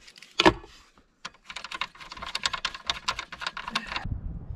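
A single click, then a quick run of small sharp clicks, about eight a second. This is a tool working a cable's terminal bolt loose to disconnect it from a solar charge controller.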